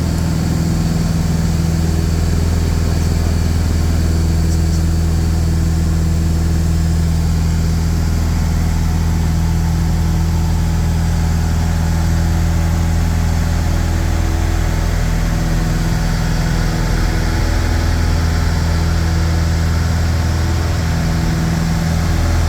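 The piston engines of a Piper PA-39 Twin Comanche, two four-cylinder Lycomings, running with a steady, even drone.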